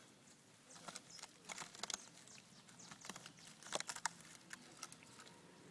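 An animal gnawing and chewing on a piece of wood, with an irregular run of sharp crunches and cracks that is loudest about four seconds in.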